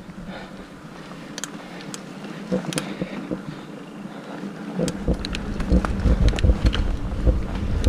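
Mountain bike ridden along a dirt singletrack trail. Scattered light clicks and rattles at first; from about five seconds in, a loud low rumble with frequent knocks as the bike rolls over rougher ground.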